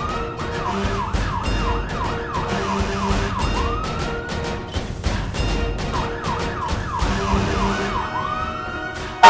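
Emergency vehicle siren sounding, alternating between a slow rising wail and a fast repeated yelp.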